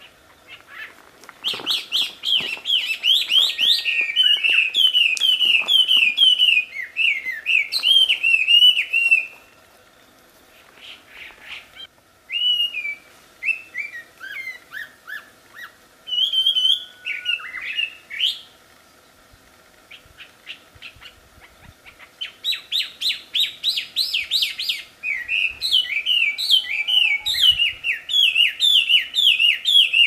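Chinese hwamei (wambi) singing loudly: long phrases of rapid, repeated clear whistled notes, broken by two pauses of a few seconds; the middle phrase steps downward in pitch.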